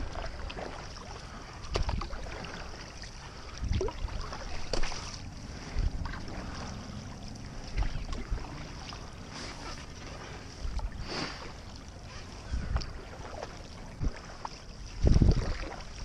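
Stand-up paddleboard paddle strokes through calm water, roughly one every two seconds, each with a light splash, over a steady hiss of moving water. Low rumbling bursts on the microphone come with the strokes and are loudest near the end.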